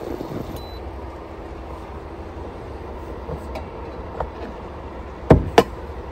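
Steady low rumble, with two sharp knocks about a quarter of a second apart a little after five seconds in.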